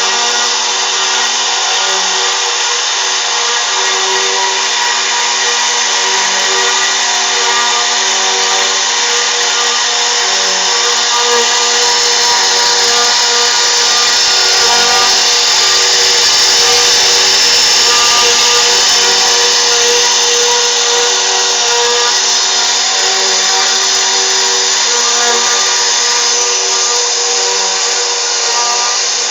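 CNC router spindle running steadily as the bit carves a 3D relief: a constant whine of several steady tones over a continuous cutting hiss.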